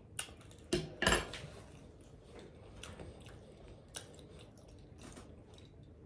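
Close-miked chewing and lip smacking while eating fried chicken: a few louder wet smacks and bites in the first second and a half, then softer chewing clicks.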